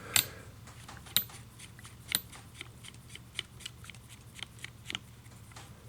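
Small metal clicks and ticks as a lever removal tool is fitted and screwed snug onto a Schlag door lever. Three sharper clicks come about a second apart at first, followed by a run of quicker, lighter ticks.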